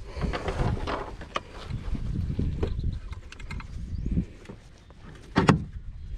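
Handling noises in a kayak: scattered clicks, rustles and knocks over a low rumble, with one loud knock about five seconds in.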